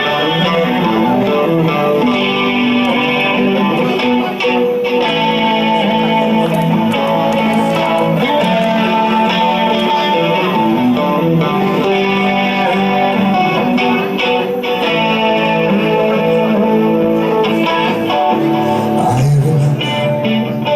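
Live band music with guitar playing chords and notes over a steady bass line, no singing.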